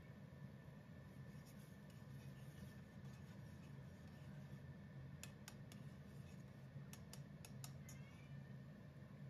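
Faint clinks and scrapes of a metal spoon stirring tomato sauce in a stainless steel saucepan, a handful of them between about five and eight seconds in, over a low steady hum.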